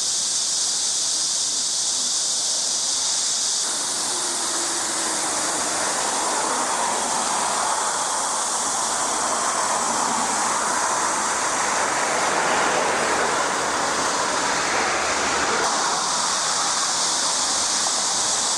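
Water rushing steadily, a continuous hiss with no breaks.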